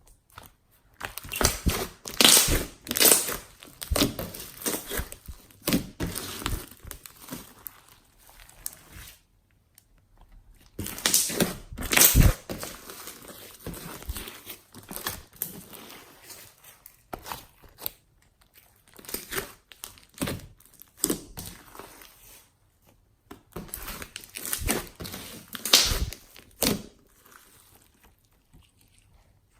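Slime being squished, poked and stretched by hand, giving off irregular sticky crackles and pops, with a few short pauses.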